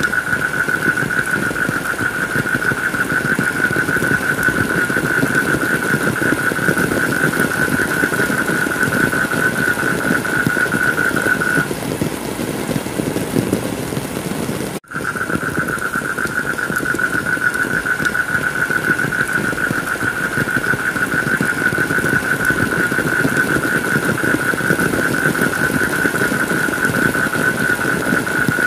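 Steady heavy rain noise with a continuous high-pitched whine running through it. The whine stops about twelve seconds in; the sound briefly drops out a few seconds later, then rain and whine resume together.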